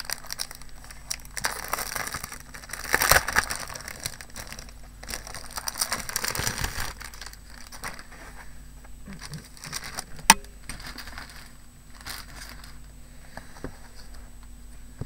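Paper and wrapping crinkling and rustling as an 8x8 scrapbooking paper pad is handled, in irregular bursts that are loudest about three seconds in and again around six seconds, with a single sharp click about ten seconds in.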